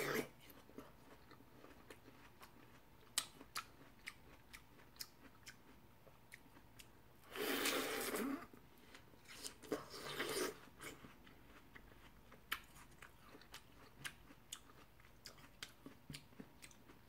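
Close-up eating sounds of watermelon being bitten and chewed: a run of small wet crunches and clicks, with two louder stretches of about a second each near the middle.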